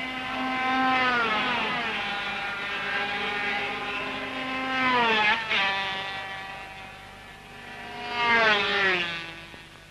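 50cc two-stroke Grand Prix racing motorcycles passing at high revs. Each shrill, buzzing engine note slides down in pitch as the bike goes by, with three main passes about a second, five seconds and eight and a half seconds in.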